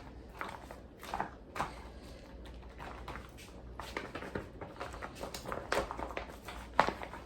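Plastic zip-top freezer bags holding chicken being handled, with irregular crinkling and rustling.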